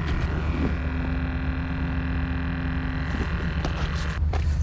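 Small electric motor of a live-bait bucket pump running with a steady whine over a low rumble, cutting off suddenly about four seconds in. The motor is turning, but the pump has failed.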